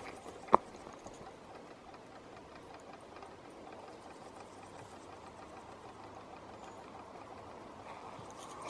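A single sharp click or knock about half a second in, followed by faint, steady outdoor background hiss.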